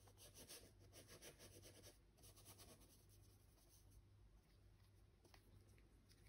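Faint, scratchy strokes of a paintbrush dabbing oil paint onto a stretched canvas, very quiet, near silence.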